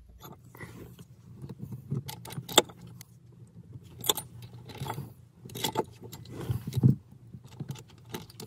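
Small metal hardware clinking: a backing plate being pushed onto bolt ends and washers and nuts handled and fitted onto the bolts, giving irregular light clicks and rattles. A steady low hum runs underneath.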